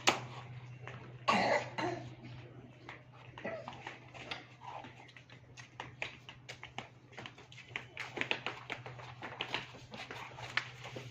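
Coughing near the start, two sharp bursts, over a steady low hum, followed by many light clicks and knocks.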